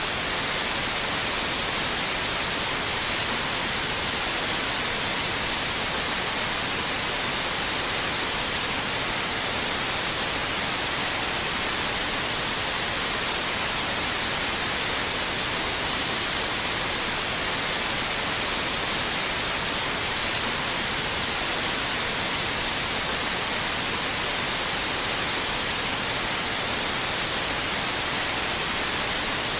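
Steady white noise: an even, unchanging hiss, brightest in the treble.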